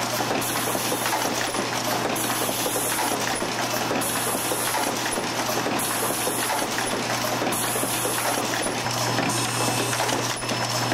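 Vibratory bowl feeder running: a steady low electromagnetic hum with small metal parts rattling and clattering continuously along its spiral track.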